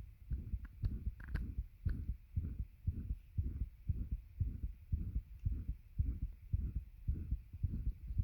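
A person's heartbeat recorded close up, a fast, regular run of low thumps at about two beats a second.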